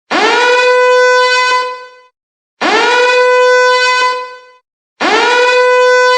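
Siren sound effect: three blasts about two and a half seconds apart, each sweeping quickly up in pitch, then holding one steady tone before fading away.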